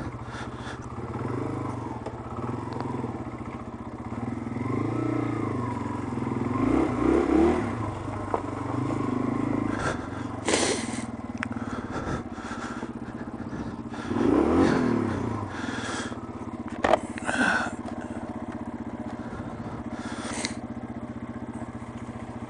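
Yamaha TW200's single-cylinder four-stroke engine running at low revs as the bike creeps through snow, its revs rising and falling briefly a few times. A few short scrapes and knocks come in between.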